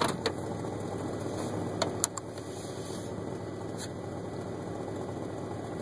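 A 1999 Chevy Silverado 1500's engine running steadily, heard from inside the cab, with a few light clicks.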